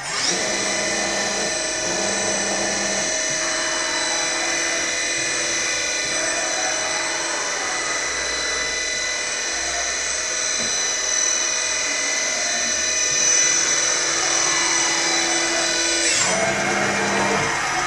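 Makino KE55 CNC toolroom mill's spindle spinning up and running at speed with a steady, high-pitched whine of several tones, then winding down about sixteen seconds in, leaving a lower machine hum.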